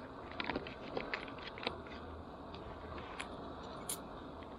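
A coffee bag crinkling and crackling in the hands as it is pulled open, a scatter of small crackles with one sharper crack near the end.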